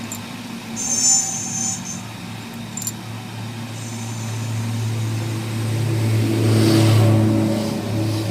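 A car engine runs steadily, grows louder over a few seconds and then eases off. A brief high-pitched whine comes about a second in and again around four seconds in.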